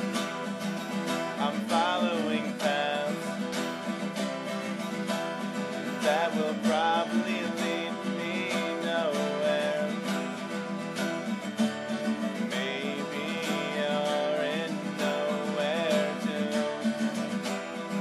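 Acoustic guitar strummed steadily in a folk song, with a wavering sung melody over it for most of the stretch.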